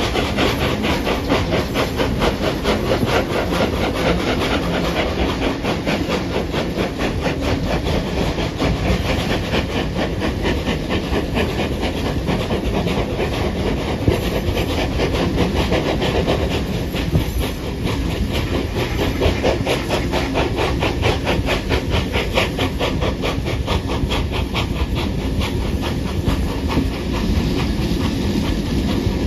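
Two steam locomotives, 3642 and 3526, double-heading a passenger train up a steep grade: a steady, rapid beat of exhaust chuffs under heavy load, with steam hiss and the carriage wheels clattering over the rails.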